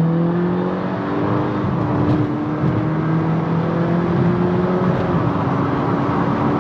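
Car engine under acceleration, its pitch climbing slowly in long pulls that drop back and start climbing again, as at gear changes.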